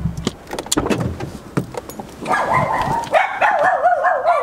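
A few scattered clicks and knocks, then from about two seconds in, rapid, high-pitched, repeated dog barking.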